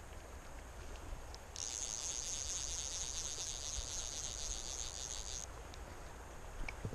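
An insect trilling: a steady, high-pitched buzz that starts about one and a half seconds in and stops abruptly about four seconds later, over a low steady rumble.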